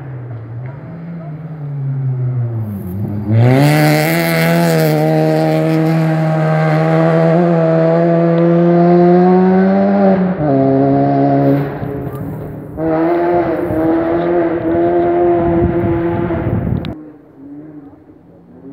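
Rally car engine running hard on a gravel stage: a sharp dip in revs near 3 seconds, then held at high revs, with a drop near 10 seconds and a brief lift before it pulls again. The sound cuts off suddenly near the end.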